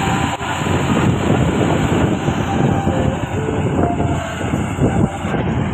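Coal-loaded Hino FM1J truck driving past and pulling away, its diesel engine and running gear making a loud, steady noise.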